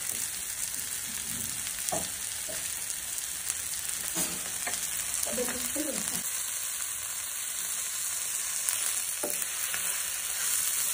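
Spicy pepper beef roast sizzling in oil in a nonstick frying pan, a steady hiss, its gravy cooked down nearly dry. A wooden spatula scrapes through it a few times as it is stirred.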